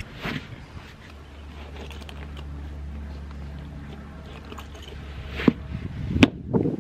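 Handling noise of a leather cowboy boot being pulled off, with a few sharp knocks, the loudest about six seconds in, over a steady low rumble.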